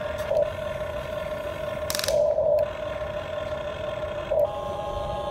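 Huina radio-controlled toy excavator's small electric gear motors whining steadily as the boom and bucket move, swelling louder about two seconds in and again just after four seconds, with a short rattle about two seconds in.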